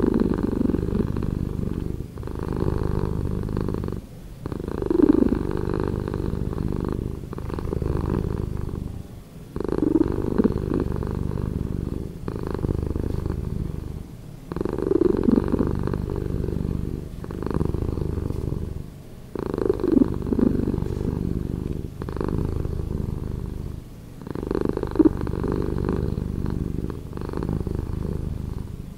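A domestic cat purring, slowed down to a deeper, slower rumble. The purr breaks briefly every two to three seconds and starts again.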